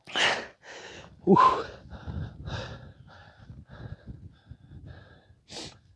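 A person breathing hard from exertion on a steep rocky descent. There is a sharp gasping breath near the start and another near the end, with a short voiced grunt about a second and a half in.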